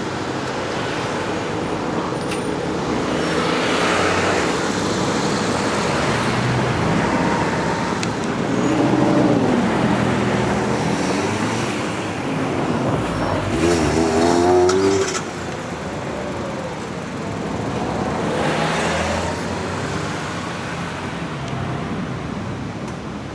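Road traffic at a level crossing: vehicles passing by over a steady rush of traffic noise, with two louder passes carrying a gliding engine pitch about nine and fourteen seconds in.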